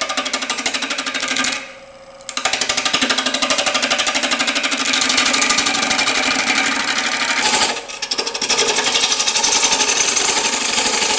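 Bowl gouge cutting a spinning natural-edge hackberry bowl blank on a wood lathe. The uneven, bark-edged blank makes an interrupted cut, heard as a fast, even rattle. The rattle stops briefly twice as the tool comes off the wood.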